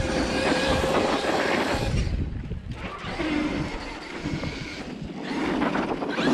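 Traxxas X-Maxx 8S electric RC monster truck driving through snow, its brushless motor and drivetrain whining up and down with the throttle. It is loudest in the first two seconds, drops off, and builds again near the end.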